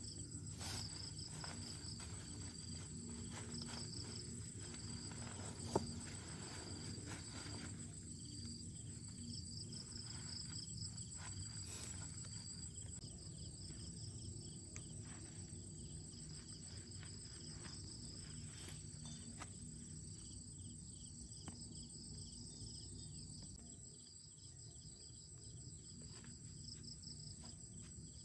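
Insects trilling outdoors: one steady high-pitched trill throughout, with a second pulsing chirp that fades out about halfway through, over a low background rumble. A single sharp click sounds about six seconds in.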